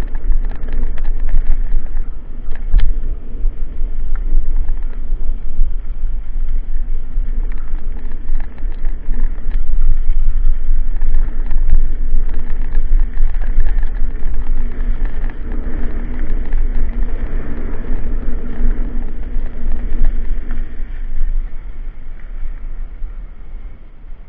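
Riding fast down a loose gravel track: wind buffeting the camera microphone over the rattle and crunch of tyres on stones, with a faint steady hum through the middle. It eases off near the end as the ride reaches smooth asphalt.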